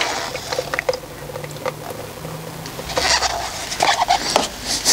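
Plastic cups and a paper paint strainer being handled: scattered small taps, clicks and rustles, with louder rustles about three seconds in and again near the end.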